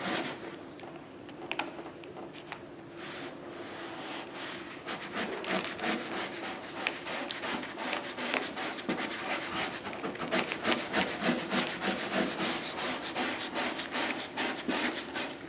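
Plastic squeegee scraping in short, repeated strokes over the paper transfer tape of a vinyl decal, pressing it dry onto car paint. The strokes come faster and harder about five seconds in.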